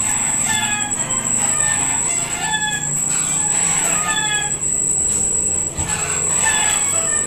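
Chickens clucking and calling in short repeated bursts, with a steady high-pitched whine underneath.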